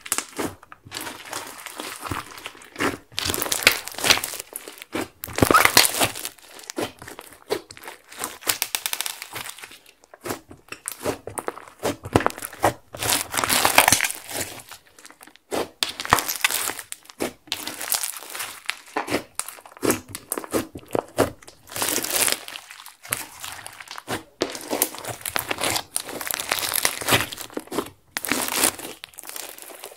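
Hands kneading, pressing and stretching a large mass of glitter slime studded with small beads: dense crackling and popping clicks as the slime is worked, coming in loud stretches of a few seconds with quieter squishing between.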